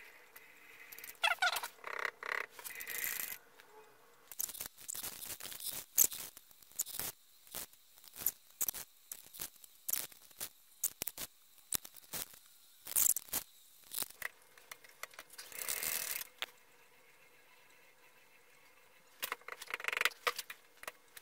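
Irregular light taps and knocks on a cast-iron milling vise as it is nudged square on the mill table, with short bursts of metal scraping and rattling.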